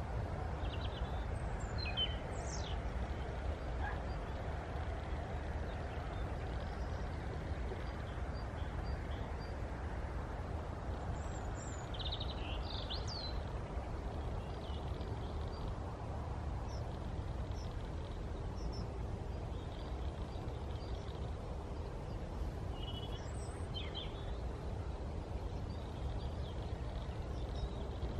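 Outdoor countryside ambience: a steady low rumble with scattered short bird calls, a few near the start, a cluster about halfway through, and a couple more near the end.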